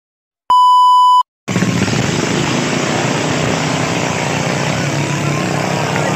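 A short electronic beep about half a second in, then the engines of 18 hp racing flat boats running at speed as they pass, a steady noisy engine sound with a low hum, from about a second and a half in.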